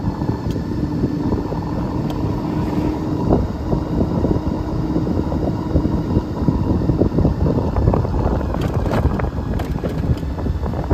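Sinclair C5 electric trike under way, its electric motor giving a steady whine over a low rumble and wind buffeting the microphone.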